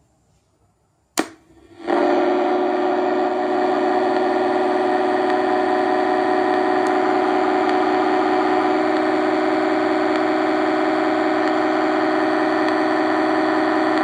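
A sharp click, then from about two seconds in a DIY-built Weird Sound Generator synthesizer (Music From Outer Space design) sounds a loud, steady drone of many tones held together at once.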